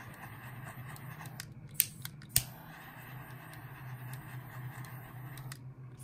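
Small handheld butane torch lighter in use: two sharp clicks about half a second apart, with a soft hiss between and after them, over a steady low hum.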